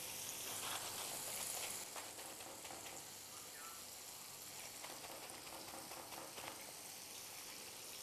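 Fish fillet frying in oil and melted butter in a pan, a soft steady sizzle with scattered small crackles.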